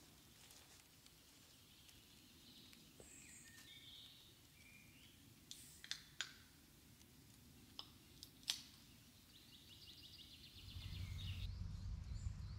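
Faint woodland birdsong: scattered chirps and a short trill. A few sharp clicks come around the middle, and a low rumble rises near the end.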